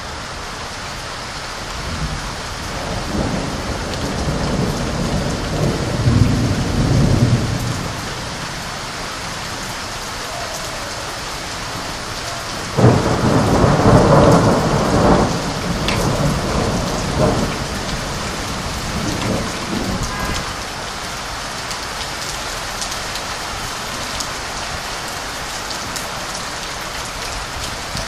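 Heavy rain falling steadily, with two rolls of thunder. A rumble builds from about two seconds in and dies away by eight, then a sharper clap breaks about thirteen seconds in and rumbles on for several seconds.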